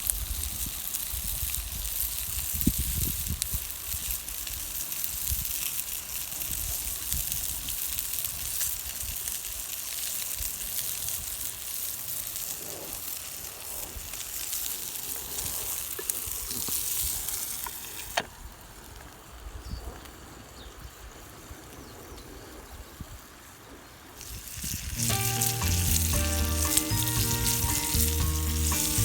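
Steady sizzling hiss with faint crackles, typical of food frying over a campfire, growing quieter about two-thirds of the way through. Background music with distinct notes comes in near the end.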